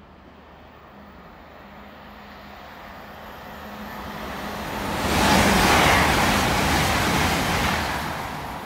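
GWR Class 800 IET bi-mode train (800018) approaching and passing through the station. Its rolling noise builds steadily, is loudest for a couple of seconds from about five seconds in, then fades as it goes by.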